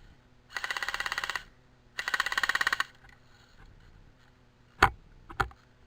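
Airsoft electric rifle (AEG) firing two short full-auto bursts, each a fast, even mechanical rattle lasting under a second, about a second apart. Near the end come two sharp knocks.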